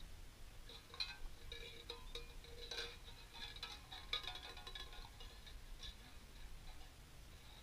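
Tin cans rattling and clinking as they are shaken by hand: a run of metallic jangles with a bright ringing edge, starting about a second in and dying away after about six seconds.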